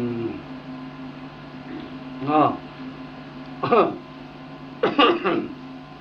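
A man's voice in three short, broken-off utterances over a steady low electrical hum.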